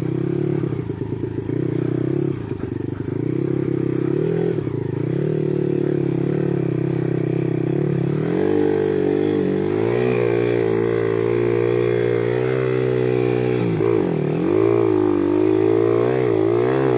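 Off-road motorcycle engine running at low revs, choppy for the first few seconds, then revving higher and rising and falling in pitch from about halfway through, with a sharp drop and pick-up near the end.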